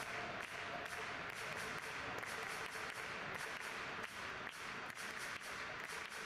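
Ballpark crowd noise: a steady wash of crowd sound with many scattered claps and clicks.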